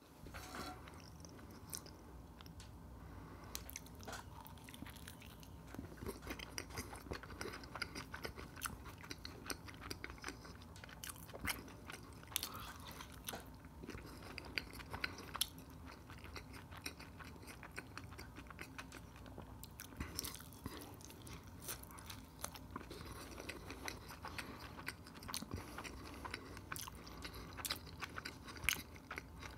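Close-miked chewing and biting of a soft flour tortilla wrap with a rice-like filling, a dense run of short wet mouth clicks throughout, with a few louder bites now and then.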